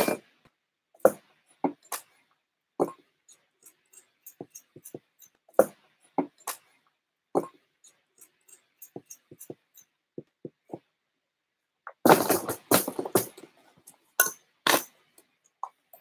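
Hand tools and small metal parts clinking and knocking as they are put away: a scattering of separate clinks, then a louder jumble of clattering about twelve seconds in that lasts a couple of seconds.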